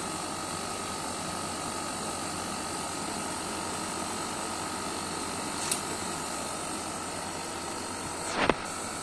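Window air conditioner running, fan and compressor on: a steady rush of air with a thin high tone. A small click a little past halfway and a sharp knock near the end.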